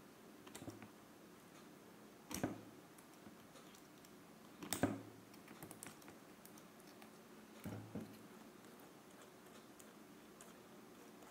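A handful of light clicks and taps from small rotary-tool accessory parts being handled by hand, a couple of seconds apart, the loudest about halfway through.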